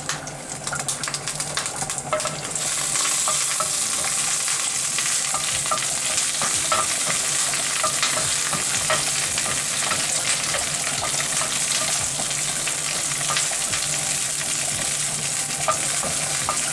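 Curry leaves and dried red chillies sizzling in hot ghee while a wooden spoon stirs them in a small metal pan, with scattered small pops. This is the tempering (tadka) frying. The sizzle gets louder about two and a half seconds in.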